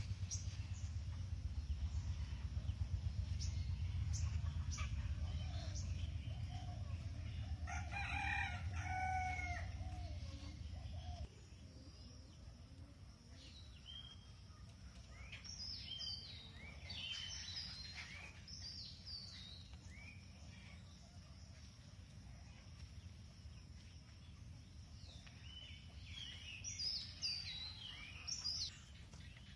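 A rooster crows once, a long call that steps in pitch, about eight seconds in. Small birds chirp here and there afterwards. Under the first part is a steady low rumble that cuts off suddenly at about eleven seconds.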